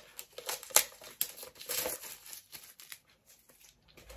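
Small cardboard earphone box being handled and opened by hand: crinkling and rustling of card and paper with sharp clicks and scrapes, busiest over the first three seconds, then fainter.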